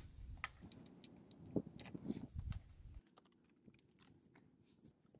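Small clicks, taps and light rattles of hands handling a mountain bike's rear wheel and drivetrain parts, with a few louder knocks about two seconds in. After about three seconds only faint scattered ticks remain.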